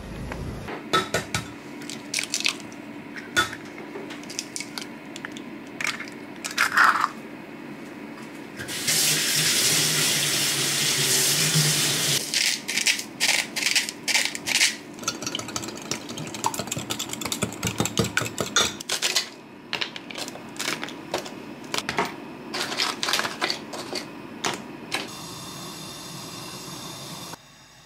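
Kitchen preparation sounds: eggs and utensils clinking and tapping against a glass Pyrex measuring jug, with a few seconds of running tap water about nine seconds in, followed by long runs of quick clinks. A steady hiss near the end.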